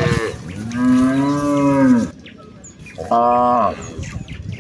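Cattle mooing: one long moo of about two seconds, then a shorter moo about three seconds in.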